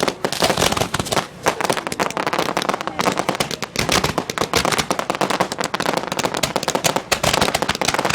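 Fireworks going off in rapid succession: a dense, continuous crackle of sharp bangs, many every second, without a break.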